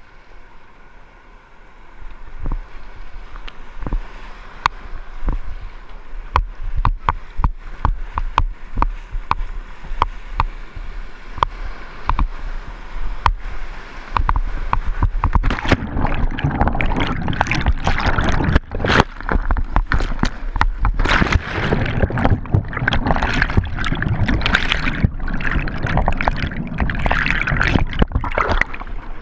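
Whitewater kayak paddled into a river rapid, heard from on board: paddle strokes and splashes as many sharp ticks at first, then about halfway through a loud, steady rush of churning whitewater.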